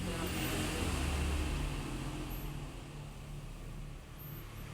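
A road vehicle passing by. Its noise swells to a peak about a second in, then fades away.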